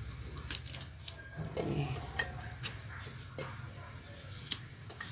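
A few scattered small clicks and taps of a knife cutting peeled red ginger into small pieces, with the pieces dropping into a blender jar.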